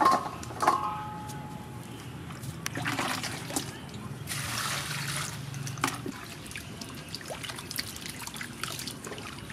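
Young tamarind pods dropped into a stainless steel bowl, two knocks that leave the bowl ringing briefly at the start. Then the pods are swished and rubbed by hand in water in the bowl, with sloshing, trickling and small clicks.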